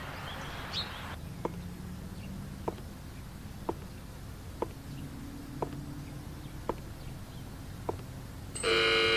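A woman's high-heeled footsteps on a hard floor, slow and even at about one step a second. Near the end an electric doorbell buzzes loudly.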